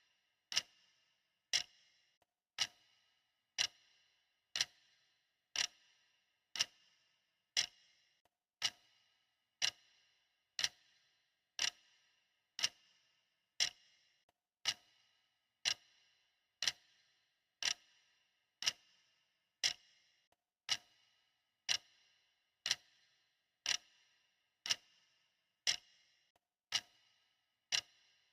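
Clock ticking steadily, one tick a second, each tick a short, bright click with a brief ring.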